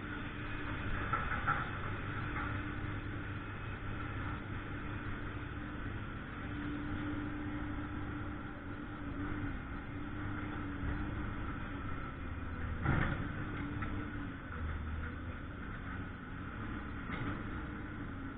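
An engine running steadily at idle with a low wavering hum, and one sharp knock about thirteen seconds in.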